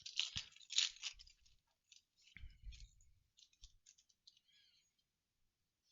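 Foil booster pack crinkling and rustling as it is opened by hand. The rustling is loudest in the first second or so, then thins to scattered light clicks and rustles, with a soft low bump about two and a half seconds in.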